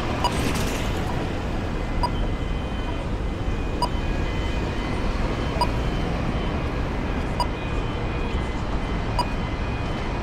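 Steady city street traffic noise, with a pedestrian crossing push-button's locator pip repeating evenly about every two seconds.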